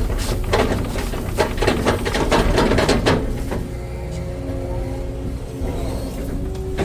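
Hitachi excavator running with a steady low rumble. In the first three seconds there is a quick run of knocks and scrapes from the machine at work, then a steadier hum as the knocking stops.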